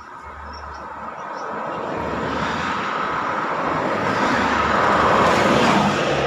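Bus approaching along the road, its engine and tyre noise growing steadily louder and peaking near the end.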